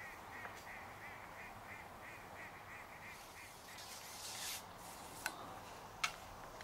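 A bird calling a steady series of short, arched notes, about three a second, that stops about three seconds in. Then comes a brief rustle and two sharp clicks close together near the end.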